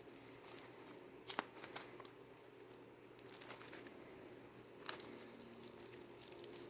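Faint handling noises of unpacking: light crinkling of packaging with a few sharp clicks, one about a second and a half in and another near five seconds.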